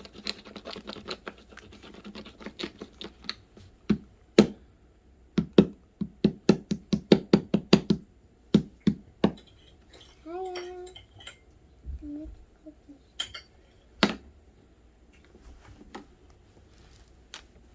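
A cookie cutter pressed and knocked down hard into Play-Doh on a tabletop. First comes a few seconds of light crackly rubbing, then a run of sharp knocks at about four a second, then a few single knocks spaced apart.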